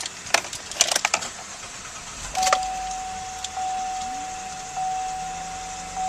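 Keys clicking and jangling at the ignition, then about two seconds in the 2011 Chevy Traverse's 3.6 V6 starts and settles to a low idle. A dashboard warning chime rings steadily, pulsing about once a second.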